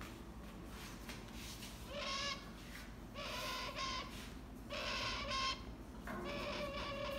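Young keel-billed toucan calling: four rough, croaking calls of about half a second each, evenly spaced and starting about two seconds in.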